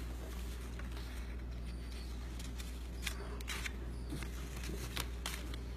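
Cardstock paper petals being handled and pressed by fingers: a handful of short, crisp paper rustles and taps over a steady low hum.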